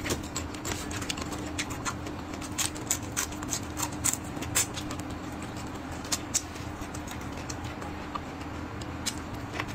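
Close-miked eating sounds: chewing, with irregular wet mouth clicks and smacks. A faint steady hum runs underneath.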